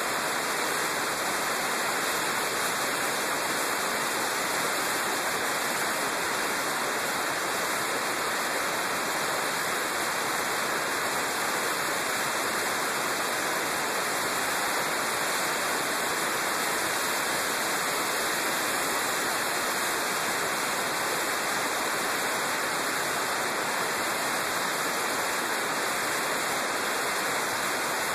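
Steady rushing wind noise on a motorcycle-mounted camera's microphone while riding, with no distinct engine note.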